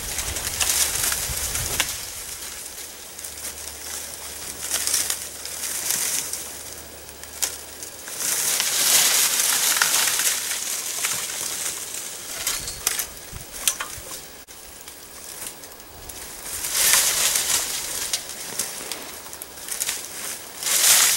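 Dry, dead leaves and branches of a hinge-cut red oak rustling and crackling as the tree is pulled down with a pole hook, in several long surges with snaps of twigs.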